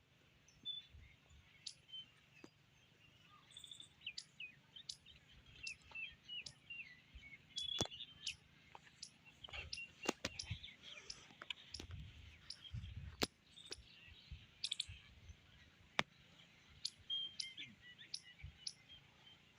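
Faint bird chirps, many short high calls, with scattered sharp clicks among them.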